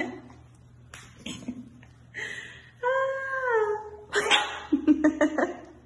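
Havanese puppies vocalising in play: a drawn-out whine about three seconds in, which dips slightly in pitch, with short yaps before and after it.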